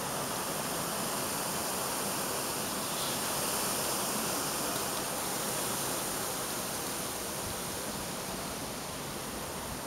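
Steady, even rushing hiss of a storm, holding at one level throughout.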